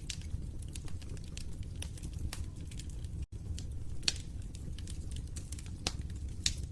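Fireplace fire crackling: a steady low rumble with frequent sharp pops, a few of them louder in the second half. The sound cuts out for a split second about halfway through.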